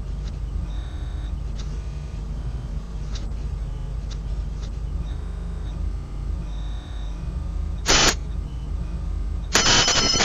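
A steady low outdoor rumble, then a doorbell buzzing: one short press about eight seconds in, then a longer, loud, harsh press near the end.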